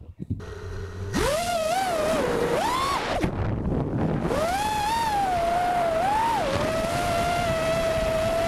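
Brushless Cobra 2204 2300KV motors and Dal 5040 props of a 5-inch FPV quadcopter spinning up and whining in flight. A faint hum at first, then a loud whine from about a second in that rises and falls with the throttle, drops away briefly around three seconds, holds steady, and climbs again near the end.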